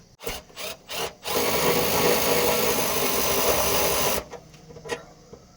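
A few knocks of tool handling, then a handheld power drill runs steadily for about three seconds and stops abruptly.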